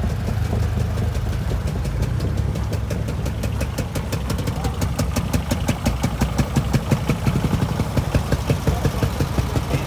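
A small railway motorcar (speeder) engine idling, with a rhythmic putt-putt of about four beats a second that grows more distinct from about three seconds in.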